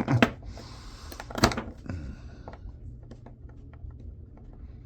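Small metal parts of a laptop hard drive being handled and pried apart: two sharp clicks, one at the start and one about a second and a half in, with a short hiss between them, then scattered light ticks.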